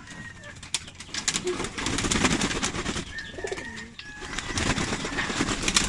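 Domestic pigeons cooing, with splashing and wing flaps as they bathe in a basin of water.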